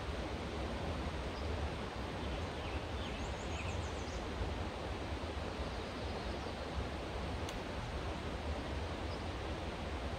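Steady rushing outdoor ambience with a deep rumble underneath, and a few faint high bird chirps about three to four seconds in.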